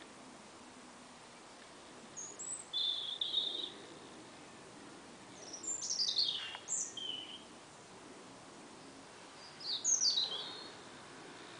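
Birds calling: short, high chirps and a trill, then downward-sweeping calls, coming in three bouts about two, six and ten seconds in, over faint steady outdoor background noise.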